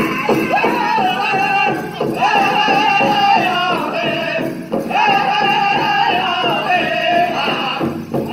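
Powwow drum group performing a chicken dance song: voices singing together in sung phrases over a steady beat on a large powwow drum, with short breaks between phrases about two and five seconds in.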